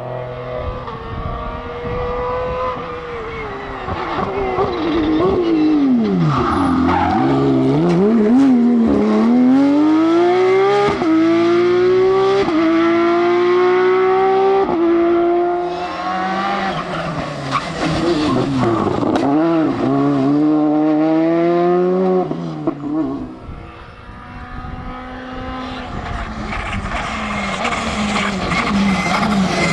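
Rally car engines at full throttle: the note drops off under braking, then climbs in steps through upshifts as the cars accelerate away, rising and falling again as they pass, with a brief lull about 24 seconds in.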